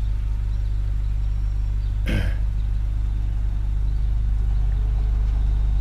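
A steady low rumble, with one short throat-clearing sound about two seconds in.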